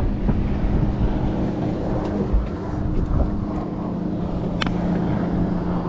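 Electric bow-mounted trolling motor running with a steady hum, over wind and water noise on the microphone, with one sharp click late on.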